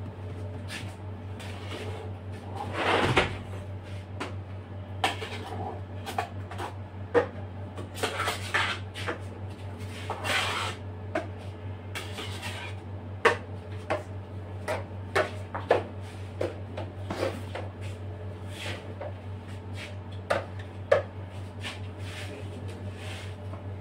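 Metal palette knife scraping cream frosting off against the rim of a plastic bowl and tapping on it: scattered sharp taps and a few longer scrapes, over a steady low hum.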